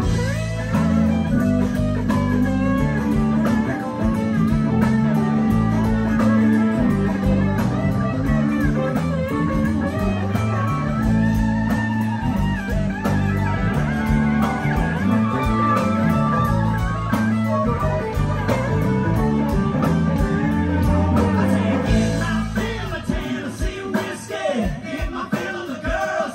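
Live country-rock band playing an instrumental passage on guitars, keyboard and drums. About 22 seconds in, the low end drops out and the music thins to lighter, plucked guitar.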